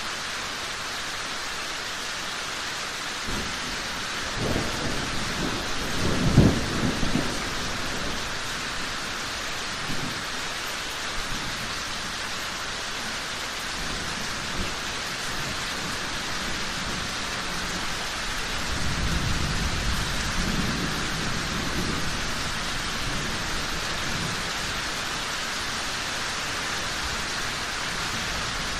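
Steady rain with thunder. The thunder rumbles from about three seconds in and is loudest around six seconds in, then rolls again more softly about two-thirds of the way through.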